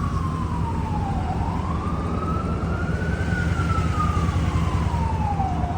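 A siren wails in slow rises and falls over the steady low drone of a vehicle under way, the 5.7-litre V8 Jeep Grand Cherokee's engine and exhaust.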